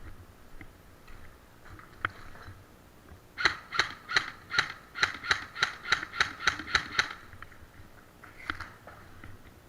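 Airsoft gun firing about a dozen quick single shots at roughly three a second, starting about three and a half seconds in and stopping near the end. A single sharp click comes shortly before the string of shots.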